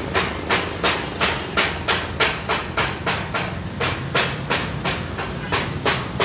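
Regular mechanical ticking, about three sharp clicks a second, over a low steady hum.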